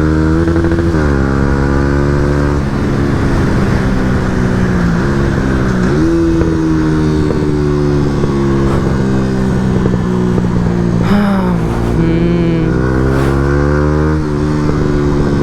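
A 2017 Yamaha MT-125's single-cylinder four-stroke engine running through an Akrapovič exhaust while riding. Its pitch dips and climbs back up a few times.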